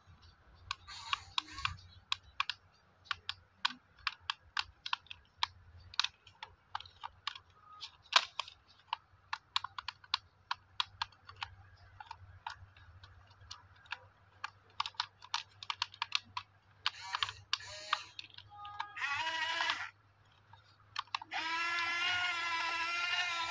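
Rapid, irregular clicking, two or three sharp clicks a second, from the plastic gear drive of a remote-control toy excavator working its boom and bucket. Short bleats come in after about seventeen seconds, and a long wavering goat bleat follows near the end.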